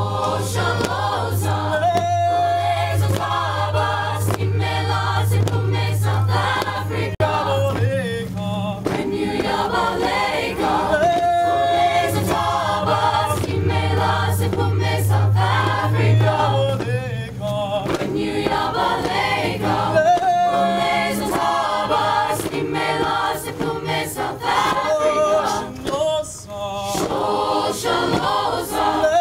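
Mixed choir of men and women singing a cappella, with low voices holding long sustained notes under the upper parts for much of the first half.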